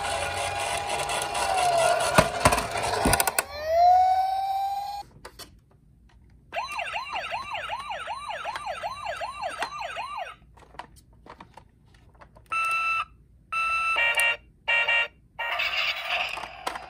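Battery-powered toy police cars sounding their electronic sirens. First comes a wailing siren over a rolling rattle with a couple of knocks, then a rising tone. After a short pause there is a fast repeating yelp siren, about four sweeps a second, and then several short electronic beeps near the end.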